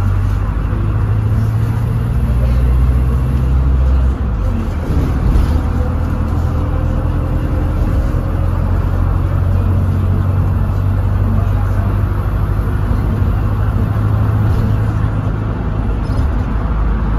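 Volvo B5LH hybrid double-decker bus heard from on board, its diesel engine working hard under full throttle with a steady low drone over road noise. A faint rising whine comes in around the middle.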